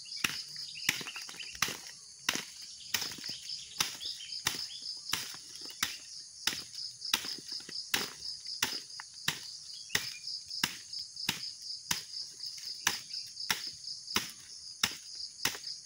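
Oil palm fruit bunch being struck over and over with a stick, about one and a half blows a second, to beat the loose fruitlets off it. Insects trill steadily behind.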